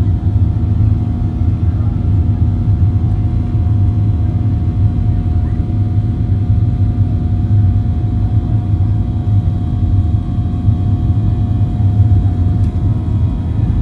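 Inside the cabin of a Boeing 737-800 rolling on the runway: a steady low rumble from the wheels and airframe, with a faint steady whine from its CFM56 engines at low power.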